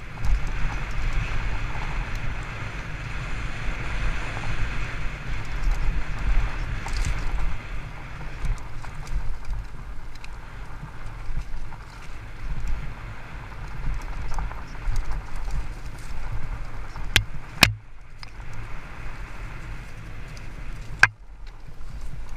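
Fat-tyre electric mountain bike (Haibike Sduro FullFat Six) riding down a rough dirt and gravel singletrack: tyre noise and rattling over the stones, with wind rushing over the camera microphone. Three sharp knocks from the bike near the end.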